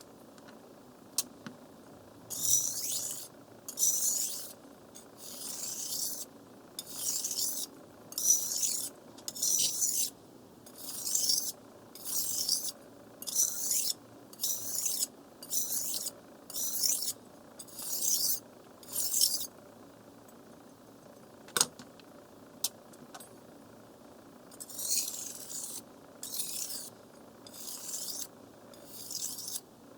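A knife blade scraping across a wet whetstone in steady strokes, a little over one a second. The strokes stop for about five seconds, with a single sharp click in the pause, then start again.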